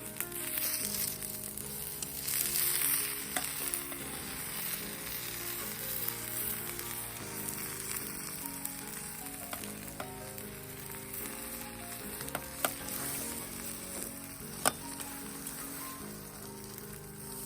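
Food sizzling in a frying pan, a steady hiss with a couple of sharp clicks in the later part, over soft background music.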